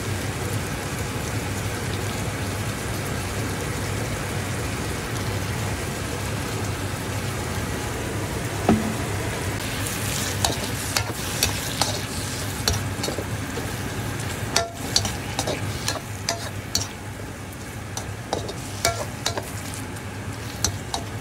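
Sliced onion, ginger and tomato sizzling steadily in oil in a frying pan. From about ten seconds in, a slotted spatula scrapes and knocks against the pan as it stirs, giving irregular sharp clicks over the sizzle.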